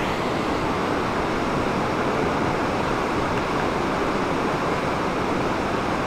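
Waterfall cascading over rock ledges into a pool: a steady, even rush of falling water.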